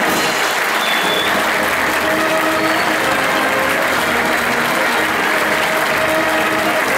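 Large crowd applauding steadily, with music and held notes faintly beneath the clapping.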